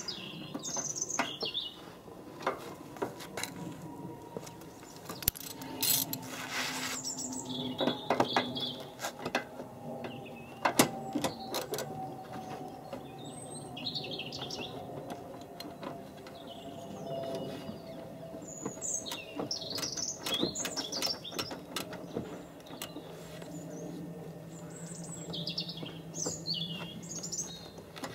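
Sharp plastic clicks and knocks from a car's front wing and bumper panel being handled and pushed into place by hand. Small birds chirp in short bursts every few seconds.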